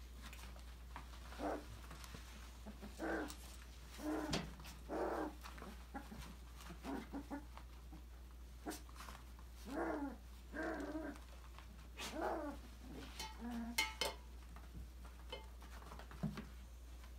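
Five-week-old Australian labradoodle puppies making short whines and yips, one every second or so. A few sharp clicks and knocks come in the second half.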